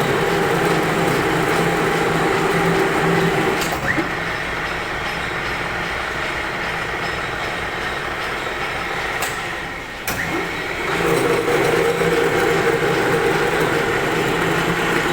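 Metal lathe running with a steady hum. It drops quieter about four seconds in and comes back up to full level about eleven seconds in.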